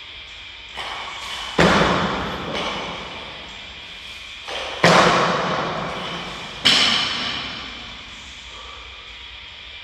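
Loaded barbell with metal plates striking a wooden lifting platform: three loud clanks, each ringing out for a second or two in a large hall, with a lighter knock shortly before the first two.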